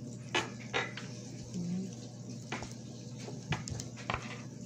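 Handling noise of a small plastic toy figure as a clear plastic piece is worked off it: a few scattered sharp clicks and taps, with a brief hummed voice sound about a second and a half in, over a steady low hum.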